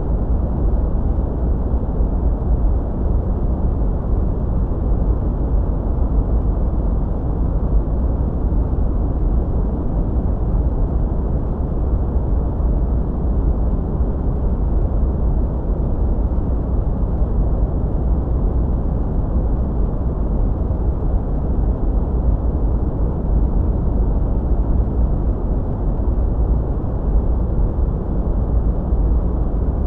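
Steady, unchanging sleep noise: a deep, muffled rush with its weight in the bass and almost no treble, with no breaks and no separate sounds in it.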